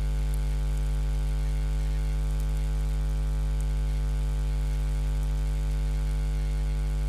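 Steady electrical mains hum: a low, unchanging buzz with a stack of overtones.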